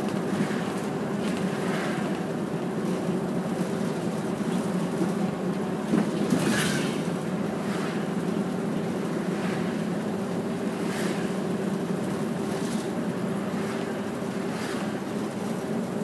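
Route bus engine and road noise heard from inside the cabin as the bus drives along: a steady low drone with a constant hum. There is a brief louder clatter about six seconds in.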